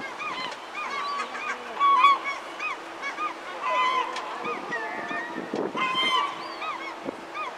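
A flock of birds calling, many short arched honk-like calls overlapping throughout, over a steady low hum.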